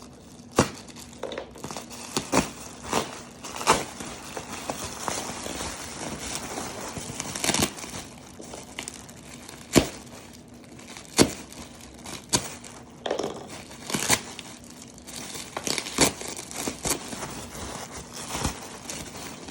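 Taped-up bubble wrap being unwrapped by hand: continuous crinkling plastic, broken by many irregular sharp crackles.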